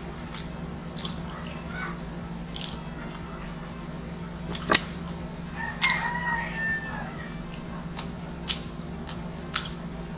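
Eating sounds: chewing, with sharp clicks of a metal fork against food and the board; the loudest click comes a little before the middle. About six seconds in, a rooster crows once, a held call of about a second.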